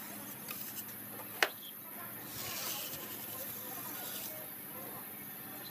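Hand float scraping over wet cement mortar as it is smoothed, a soft rasping hiss, with one sharp tap about a second and a half in.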